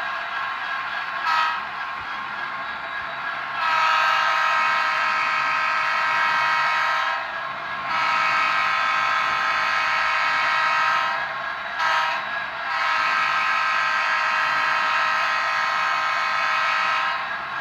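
Model train's locomotive horn blowing a brief toot, then the grade-crossing pattern of long, long, short, long blasts.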